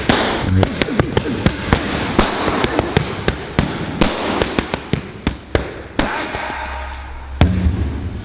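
Boxing gloves punching focus pads in quick combinations, sharp slaps about three a second. A heavier low thud lands near the end.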